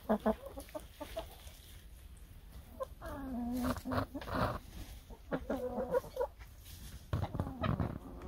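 A flock of backyard hens clucking and calling, several drawn-out calls in the middle and near the end, with a few soft ticks near the start.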